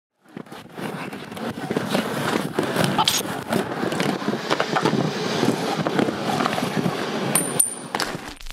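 Inline skate wheels rolling fast over rough concrete: a continuous rolling noise with scattered clicks and knocks as the wheels cross cracks and joints.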